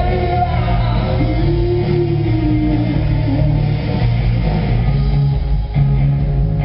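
A band playing live music, with a sustained melodic line over a steady low bass.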